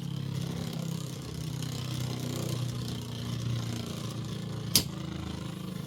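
Two Beyblade X spinning tops, Blackshell and Leon Claw, whirring as they spin in a plastic stadium, with one sharp clack of a hit about three-quarters of the way through.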